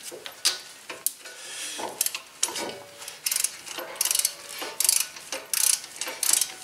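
Ratchet wrench clicking in repeated back-and-forth strokes, running down the bolts of a new front wheel bearing hub assembly. The strokes are irregular at first and settle into a steady rhythm of about one to two a second in the second half.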